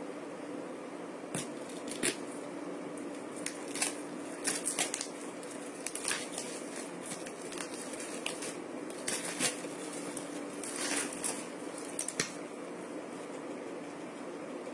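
Plastic packaging being cut open with scissors and pulled apart, giving scattered crinkles, crackles and snips that stop about two seconds before the end, over a steady low hum.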